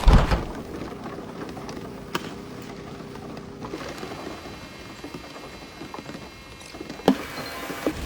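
Steady rain pattering, with a heavy low thump right at the start and a few light clicks and knocks, one sharper knock about seven seconds in.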